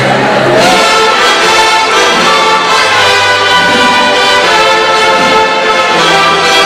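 A large student ensemble of violins, guitars and trumpets, in the style of a school mariachi, playing a piece together, with the trumpets standing out over the strings and the sound echoing in a gymnasium.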